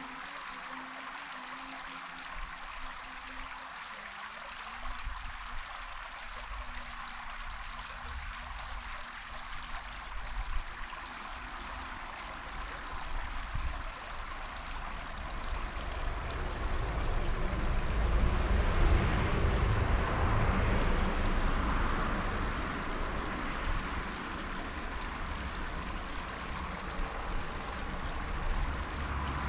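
Wind on the microphone: a steady rushing noise with a low rumble that swells to its strongest a little past the middle, then eases off.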